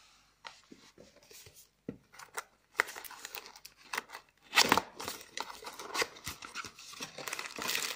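A small cardboard retail box being handled and opened by hand: light taps and scrapes at first, then denser rustling and tearing of the packaging from about three seconds in, loudest around the middle.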